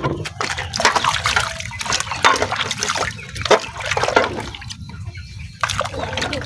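Water splashing and trickling as aloe vera leaves are handled in it, with irregular knocks and clatter throughout.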